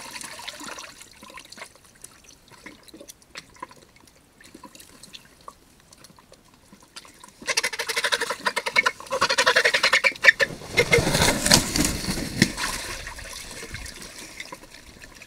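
Cinereous vulture bathing in a shallow rock pool, its wings beating and splashing the water. The splashing is faint and scattered at first, then about halfway turns loud and rapid for several seconds before fading.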